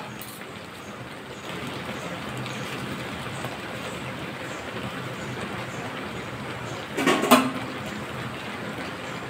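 Steady hiss of water boiling in a steel wok on a gas stove as chopped taro stems are dropped in by hand, with a brief clatter about seven seconds in.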